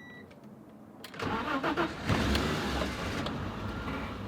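BMW E30 325i's 2.5-litre straight-six cranks about a second in, catches and flares, then settles into a steady idle: the car starting again now that the new fuel pump is delivering fuel.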